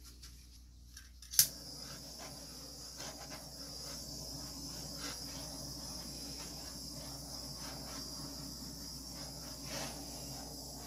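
Small handheld butane torch clicked alight about a second and a half in, then hissing steadily as its flame is passed over wet acrylic pour paint to pop bubbles and bring up cells.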